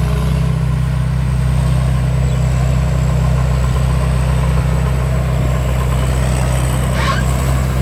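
2024 Chao Chang WiFi combine harvester running steadily, a deep engine drone with a thin, high, steady whine over it.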